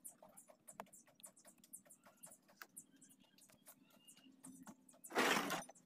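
A cloth rag rubbing and wiping over a fiberglass boat mold: scattered faint scratchy ticks, with one louder rustling swipe about five seconds in.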